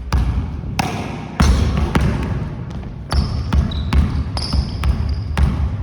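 Basketball dribbled on a gym floor in one-on-one play: irregular bounces, with brief high sneaker squeaks twice in the second half.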